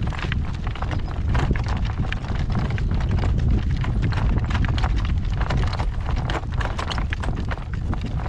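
Hoofbeats of a driving horse at a slow trot, a quick even clip-clop, over a steady low rumble.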